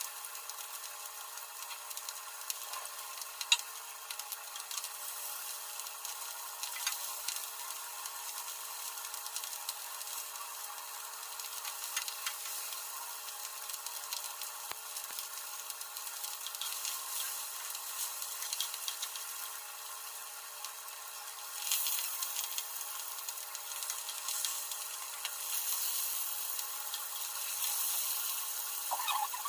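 Fish steaks frying in hot oil in a nonstick pan: a steady sizzle with scattered crackles and pops. There is one sharp click a few seconds in, and the sizzle grows louder about three-quarters of the way through and again near the end.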